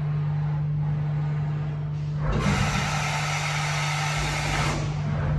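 Steady low hum of a powered-up Mori Seiki NH4000 DCG horizontal machining centre standing idle, its spindle stopped. A little over two seconds in, a loud hiss starts and lasts about two and a half seconds before cutting off.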